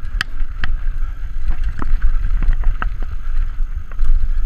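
Wind rumbling on an action camera's microphone as an Airborne Hobgoblin 29er mountain bike rolls down a rocky trail, with scattered sharp clicks and rattles from the bike jolting over rocks.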